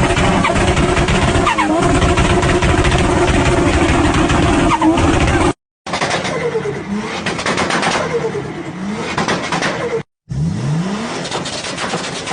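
Car engines revving in three clips cut together. The first holds a steady high whine with two brief dips in pitch. After a sudden cut, the revs rise and fall several times, and after a second cut a rev climbs steadily in pitch.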